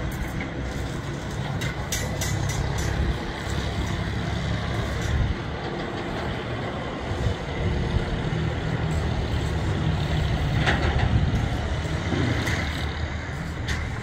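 A steady low rumble, with scattered sharp taps and clinks of bricklayers' trowels on fired clay bricks.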